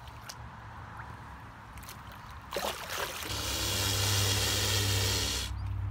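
Lake water splashing, then a loud rush of pouring water close to the microphone for about two seconds that cuts off abruptly.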